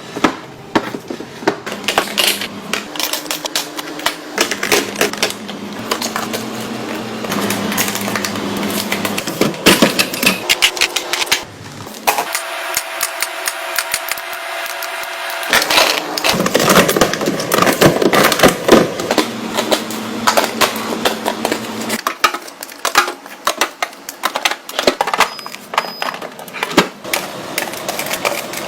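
Rapid clicks, taps and clatter of objects being handled, mixed at times with a steady pitched tone.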